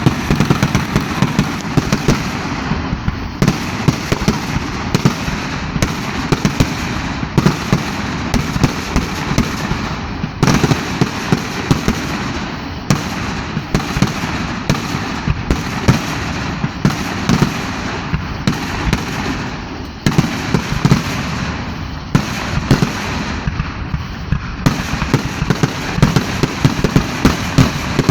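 Fireworks going off in a dense, continuous barrage of sharp bangs and crackles, several every second.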